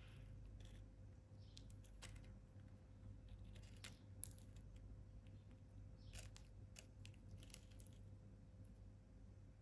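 Faint soft clicks and short scrapes of a chocolate cookie being dipped into and dragged through cream in a thin plastic dip tray, a handful of separate small sounds over a low steady hum.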